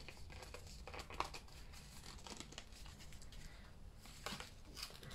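Faint rustling and crinkling of paper and cardstock as a pop-up card with an orange cardstock mechanism is opened, folded and handled, with scattered light taps and a sharper one about a second in.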